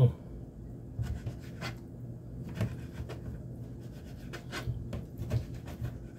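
Kitchen knife slicing raw chicken on a cutting board: irregular taps and scrapes of the blade against the board, a couple a second.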